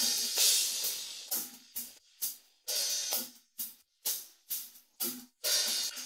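Isolated cymbal track of a rock drum kit, with no other drums. A crash cymbal washes out near the start, then come short, sharp cymbal and hi-hat strokes at about two a second, some choked off quickly.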